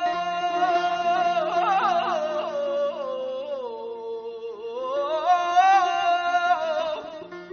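Male singer performing Persian classical avaz in the Isfahan style. About two seconds in there is a run of rapid vocal trills (tahrir); the voice then slides down and climbs back up, over steady held accompanying notes.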